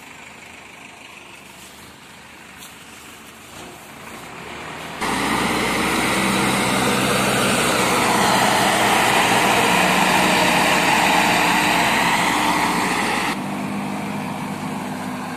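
Farm tractor diesel engines running, faint for the first few seconds, then suddenly loud from about five seconds in with a steady engine note, dropping off sharply near the end.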